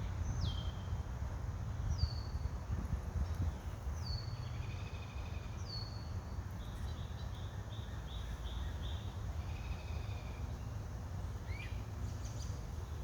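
Several wild birds singing: a short whistled note that drops sharply in pitch, repeated about every two seconds, with trills and a quick run of repeated notes in the middle, over a steady low rumble.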